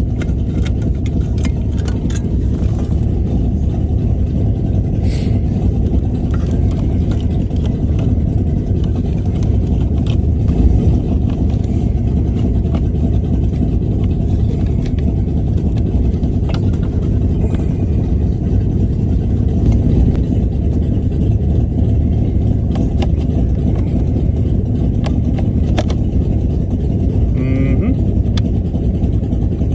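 Engine of a '66 vehicle idling steadily, with occasional light clicks and knocks from work under a car's dashboard.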